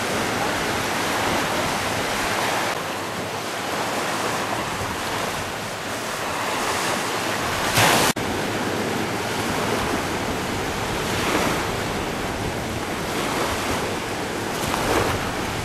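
Surf and small waves washing onto a sandy beach in a rocky cove: a steady rushing that swells and eases every few seconds, with wind buffeting the microphone. About eight seconds in, a brief loud rush cuts off abruptly.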